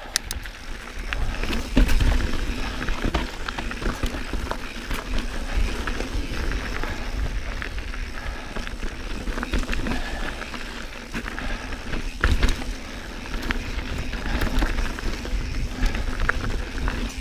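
2019 Santa Cruz Bronson mountain bike ridden along a rough dirt trail: steady tyre noise over a low rumble, with frequent clicks and knocks as the bike rattles over rocks, and heavier jolts about two seconds in and again near twelve seconds.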